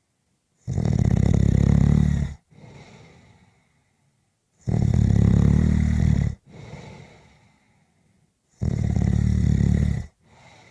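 Snoring in slow, even cycles: three loud snores about four seconds apart, each lasting under two seconds and followed by a softer, fading breath out.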